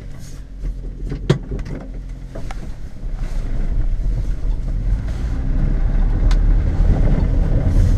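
Subaru Sambar mini truck driving, heard from inside the cab: the small engine runs with a low rumble that grows louder over the second half. A few sharp clicks come through it.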